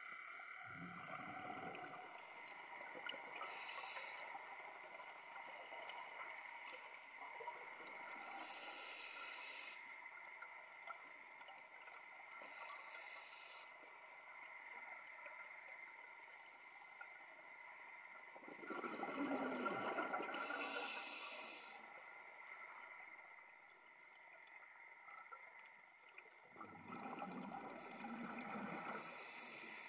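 Scuba regulator breathing heard underwater: exhaled bubbles gurgle about a second in, around two-thirds of the way through, and near the end, with short hisses between them, over faint steady tones.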